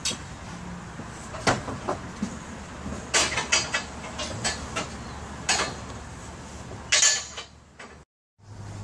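Metal clanks and knocks of steel scaffolding being put together, sharp strikes every second or two over a steady low hum.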